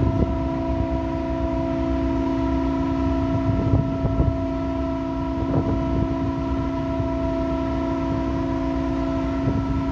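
A ship's engines and machinery humming steadily on deck, several held tones over a low rumble, with wind buffeting the microphone a few times.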